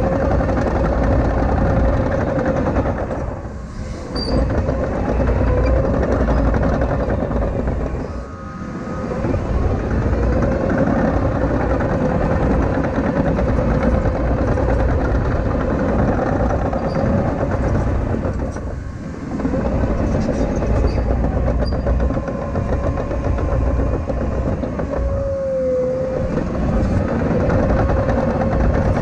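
CAT 953K track loader working, its diesel engine and hydraulics running steadily with a constant whine. The engine sound dips briefly about four times.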